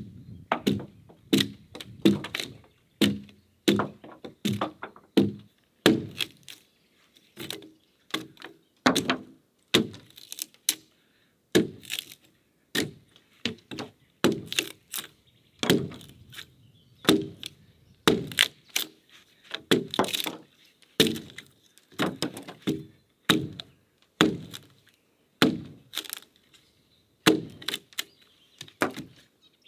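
Hand axe chopping into the top of a peeled log, a steady run of sharp, splintering chops a little more than one a second.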